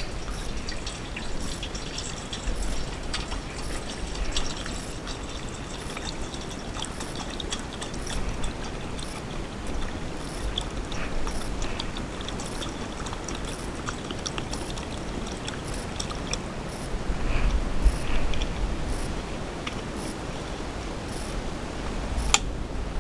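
Water trickling steadily, with a low rumble on the body-worn camera's microphone and a sharp click near the end.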